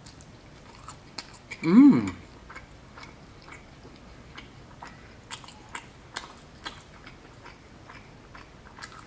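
A person chewing a bite of New York-style cheese pizza, with scattered small mouth clicks and smacks. About two seconds in comes a brief hummed vocal sound that rises and falls in pitch, the loudest sound here.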